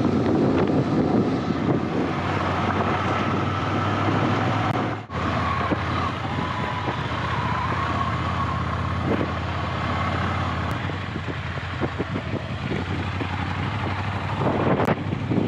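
Ducati Scrambler motorcycle's L-twin engine running steadily while ridden on a rough off-road track, with wind and road noise over it. The sound drops out briefly about five seconds in.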